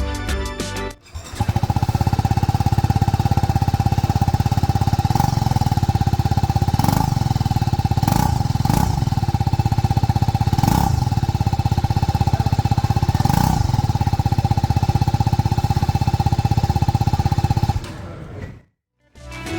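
TVS Apache RTR310's 312 cc single-cylinder engine idling with a steady, rapid pulse, blipped with several quick throttle stabs; it starts about a second in and cuts off shortly before the end.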